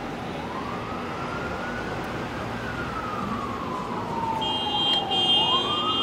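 Emergency vehicle siren wailing on the street below, rising slowly, falling for about three seconds, then rising again, over city background noise. A second steady, high-pitched tone joins near the end.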